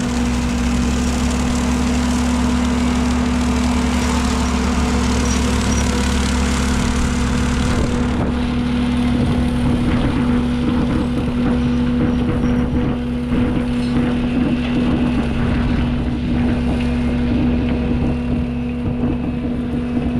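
Bobcat T750 skid-steer's diesel engine running with its brush-cutter attachment spinning: a loud, steady drone with a constant hum. The high hiss thins out about eight seconds in.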